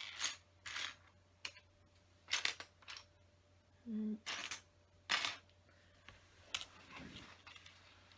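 Loose plastic LEGO pieces clicking and clattering as they are sifted through by hand, in about eight irregular sharp clicks.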